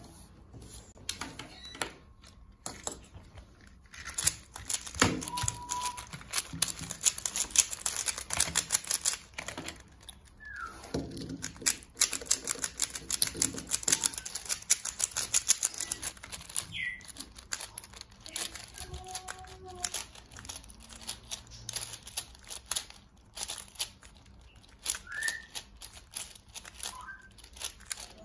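3x3 speedcube layers being turned fast by hand to scramble it: a rapid, uneven run of plastic clicks and clacks, densest in stretches of a few seconds. A few short whistle-like pitch glides come through now and then.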